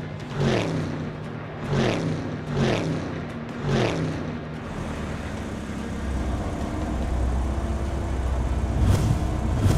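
Animated-vehicle sound effects: a falling sweep repeated five times about a second apart, then a steady low engine-like rumble with a brief click near the end.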